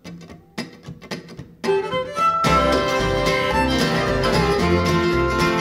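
Bluegrass band kicking off a tune. After a quiet start with a few stray notes, the fiddle comes in about 1.7 s in, and the acoustic guitars and upright bass join under it about a second later, playing full.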